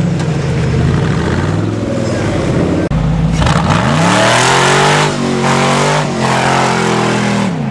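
Off-road trial vehicle's engine running at low revs, then, about three seconds in, revved up hard and held at high revs as it climbs a muddy slope. The revs drop away near the end.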